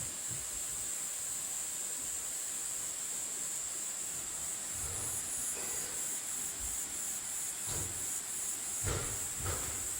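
Insects in the forest making a steady high-pitched buzz, with a few soft low thuds in the second half.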